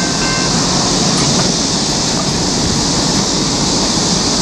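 Steady rumble and hiss of a departing freight train, heard after it has cleared the crossing. The steady ring of the crossing's electronic bell stops about half a second in, as the gates go up.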